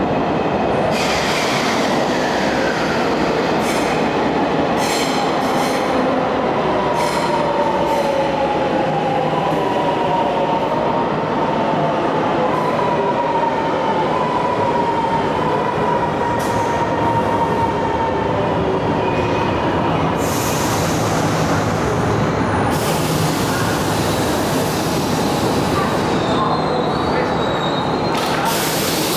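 Milan Metro Line 2 train pulling into an underground station and braking to a stop: a steady rumble of wheels on rail with a whining tone that slowly falls in pitch as the train slows, then stretches of hissing in the later part.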